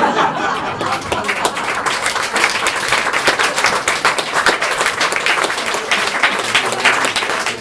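Audience applauding: a dense, steady patter of hand clapping.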